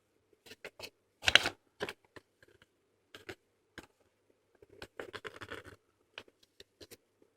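Paper and cardboard packaging being handled and rummaged through: scattered scratches and light taps, with a louder rustle about a second in and a cluster of them around five seconds in.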